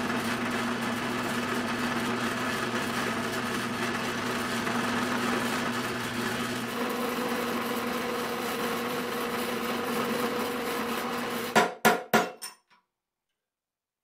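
Benchtop drill press running, its bit drilling small holes through stacked aluminium knife handle scales: a steady motor drone with the cutting noise. It stops about three quarters of the way through with a few sharp knocks.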